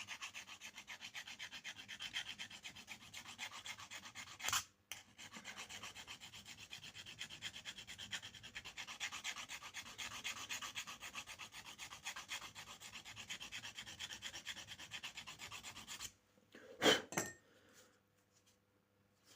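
A pocket knife blade being sharpened, stroked quickly and evenly back and forth in a steady scraping rhythm, with a short break about four and a half seconds in. The strokes stop suddenly near the end, followed by two sharp knocks.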